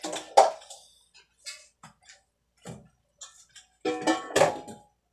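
Kitchenware clattering at a sink: a string of separate clanks and clinks, some ringing briefly. The loudest come about half a second in and again around four seconds in.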